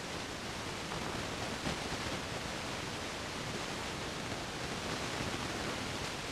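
Steady, even hiss of background noise, with no other clear sound standing out.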